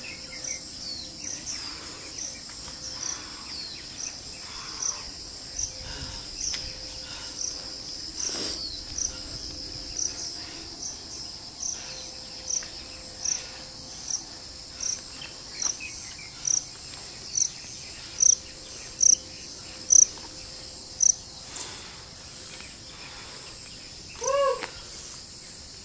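Summer insect chorus: a steady high-pitched hum with a short high chirp repeating a little more than once a second. The chirp grows louder and then stops a few seconds before the end. Near the end comes one brief, lower call.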